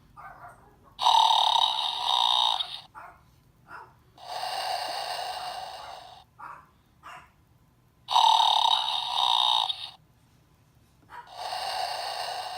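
Snorlax plush's sound module playing a recorded snore through a small speaker, thin with no low end: a loud snorting breath in, then a softer, longer breath out, twice over.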